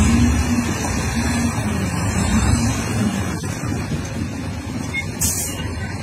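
Dump truck's diesel engine running steadily with the bed raised, driving the hydraulic tipping hoist as the load of sand slides off. A brief hiss of air about five seconds in.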